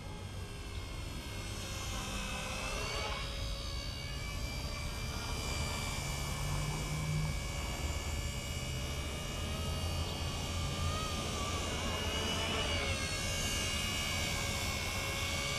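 Radio-controlled WLtoys V931 model helicopter flying: the high whine of its electric motor and rotors, steady, shifting in pitch about three seconds in and again later as the throttle or distance changes.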